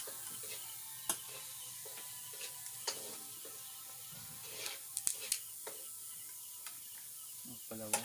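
Tableware clinking as rice is served: a spoon and plates tapping against metal and ceramic dishes, a few sharp clicks over a steady background hiss.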